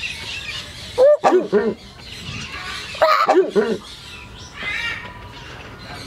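Horned screamer calling: two loud bursts about two seconds apart, each a quick run of notes that fall in pitch.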